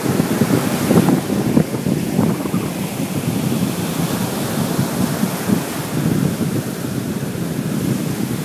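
Choppy sea surf breaking and washing up a sandy beach, with wind buffeting the microphone in an uneven low rumble.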